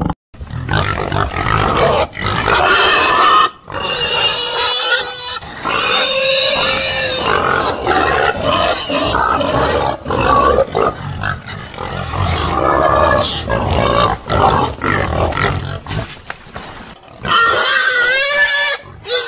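Domestic pigs grunting and squealing, one call after another with brief pauses.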